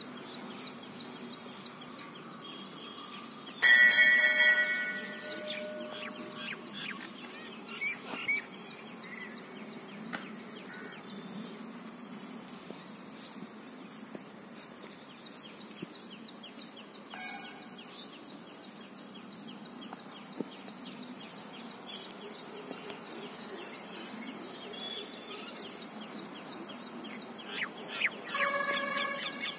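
Insects droning steadily at a high pitch. About four seconds in, a loud tone with several pitches sounds and fades over a second or so, and a similar, quieter one comes near the end.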